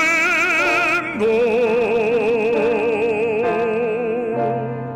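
Operatic baritone singing a Korean hymn over accompaniment. About a second in he sets in on the word 밟음도 and holds one long note with wide vibrato for about three seconds. Near the end the voice fades and a low held note from the accompaniment sounds.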